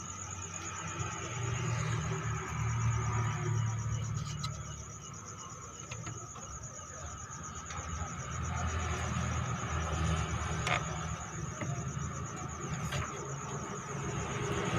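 A high-pitched insect trill, steady and finely pulsing, with a low engine-like rumble that swells and fades underneath.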